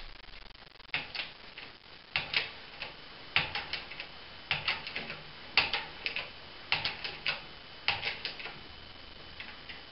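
Hydraulic bottle jack on a shop press being pumped by its handle to press a two-stroke snowmobile crankshaft. Small clusters of metallic clicks come about once a second, one cluster for each pump stroke.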